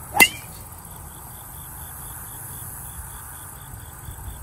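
A golf club striking a ball: one sharp, ringing crack just after the start. Under it, insects chirp steadily at about four chirps a second.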